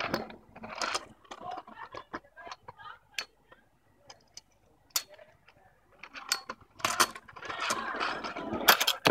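Kick scooter on concrete pavement: scattered clicks and knocks of its wheels and deck. Over the last couple of seconds a rolling scrape builds, ending in a sharp clatter, as a tail whip is attempted.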